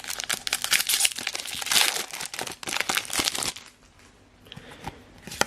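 Foil wrapper of a Pokémon trading card booster pack crinkling and tearing as it is ripped open, a dense crackle for about three and a half seconds, then much quieter with a few small clicks.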